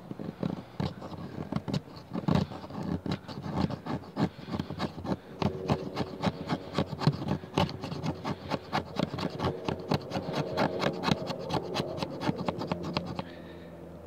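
Small multitool blade scraping down a stick of fatwood in quick repeated strokes, several a second, shaving off fine chips for tinder.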